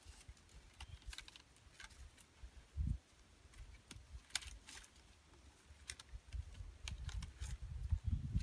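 Light, irregular clicks and crackles of wooden sticks and a binding being worked by hand as a joint of a pole frame is lashed. A dull thump comes about three seconds in, and a low rumble builds near the end.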